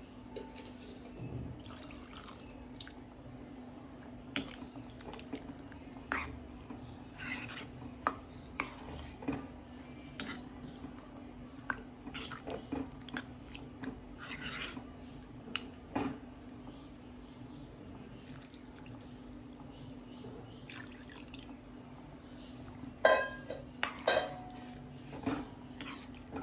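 Steel spoon stirring and scraping a wet curry in a metal kadai: irregular clinks and scrapes, with a loud flurry near the end, over a steady low hum.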